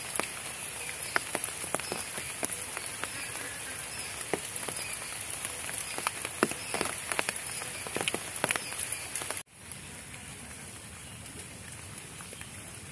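Rain falling on wet foliage: many sharp, close drop hits tick over a steady hiss. About nine and a half seconds in it cuts abruptly to a quieter, steadier rain hiss with few drop hits.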